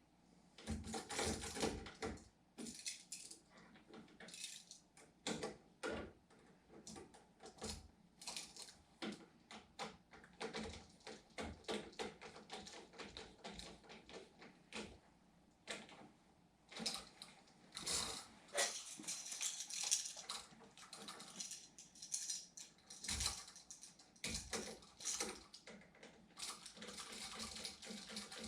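Irregular clicks, clinks and rattles of small hard objects being handled, coming in quick clusters with short pauses between.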